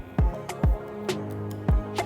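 Background music with a beat: deep kick drums that drop in pitch, sharp clicks and held notes.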